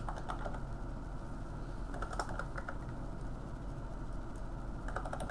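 Computer keyboard being typed on in short bursts of key clicks, entering numbers: a burst near the start, another about two seconds in, and more near the end.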